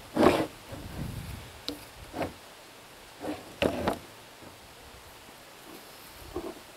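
PVC pipe fittings being handled and fitted together by hand: a few short plastic knocks, the loudest right at the start and another just before the halfway point, with quieter handling between and after.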